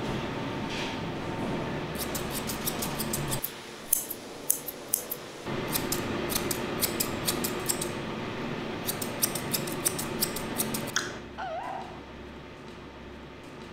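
Curved steel grooming shears snipping a Pomeranian's face fur in quick runs of clicks over a steady background hum. Near the end the dog gives a short wavering whine.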